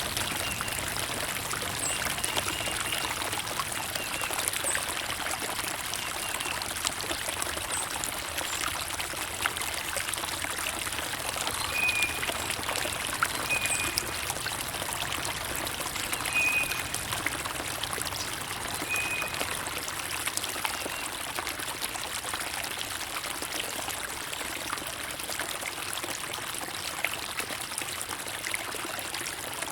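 Water trickling and running steadily, as a small stream, with a few short, high bird chirps over it.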